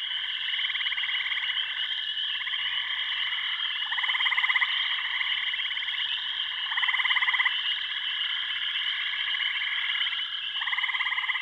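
A dense frog chorus: a steady high trilling drone, with louder pulsed croaking trains rising out of it every second or two.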